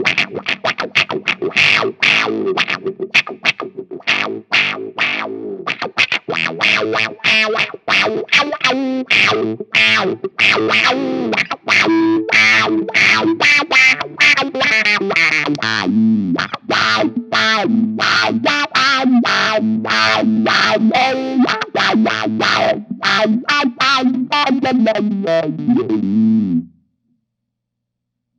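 Electric guitar played through a Dr. No Roadrunner octave fuzz wah pedal: heavily distorted, fast-picked riffs. It stops abruptly near the end.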